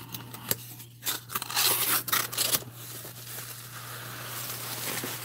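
Packing tape ripped off a cardboard box and the flaps pulled open. The loudest tearing comes about a second and a half in, then plastic bubble wrap rustles and crinkles as a hand digs into it.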